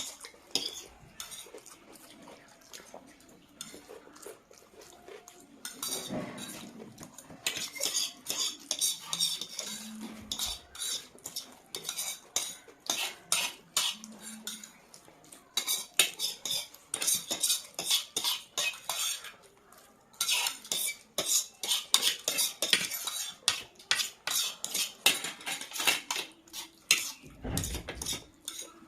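Chow mein being eaten off a plate: utensils click and scrape against the plate in rapid runs of quick, sharp clicks, busier from about a quarter of the way in.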